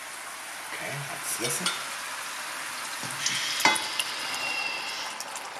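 Olive oil with anchovies, garlic and olives frying in a pan, a steady sizzle. About three and a half seconds in there is a sharp knock as tinned tomato pulp is tipped into the pan, and the sizzle grows a little louder.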